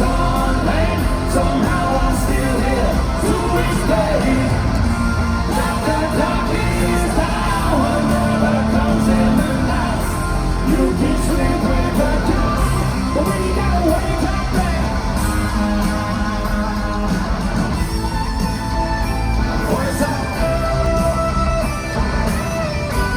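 Hard rock band playing live through an arena sound system, with singing and yelling over loud guitars and drums.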